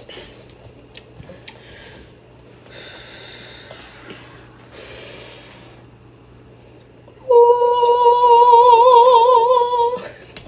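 A person's long, wavering voiced tone, loud and held for nearly three seconds, starting about seven seconds in and cutting off sharply.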